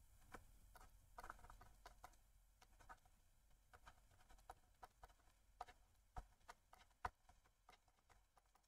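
Faint, irregular taps and light scratches of a stylus on a tablet while writing by hand, a few small clicks a second.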